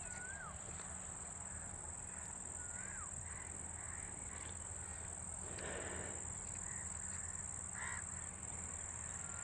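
Outdoor rural ambience: insects buzz steadily at a high pitch, and a bird gives a few short rising-and-falling chirps, about three in all.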